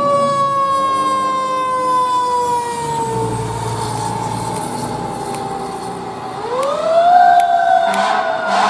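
Fire engine's siren sliding slowly down in pitch, then rising sharply about six and a half seconds in and starting to fall again, over the low rumble of the truck driving away.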